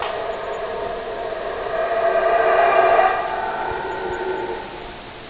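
A beast howling: one long drawn-out howl on a steady pitch, swelling to its loudest about three seconds in and fading near the end.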